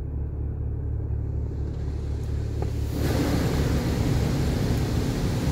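Low, steady rumble of a car idling, heard from inside the cabin. About three seconds in, a loud, even rushing hiss from the car wash starts up against the car and carries on.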